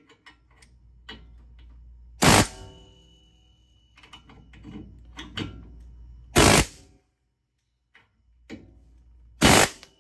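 Harbor Freight pneumatic air hammer fired in three short bursts against a heated, seized wheel bearing inner race on a steel spindle, with lighter metal clicks and taps in between. The hammering is knocking the stuck race off the spindle.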